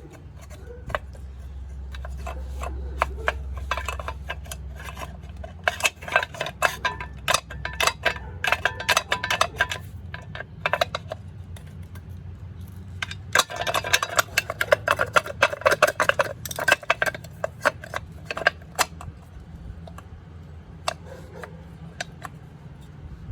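Irregular metal-on-metal clinks and knocks from tools worked against a stuck dirt bike part, coming in two busy flurries of sharp clicks with quieter stretches between.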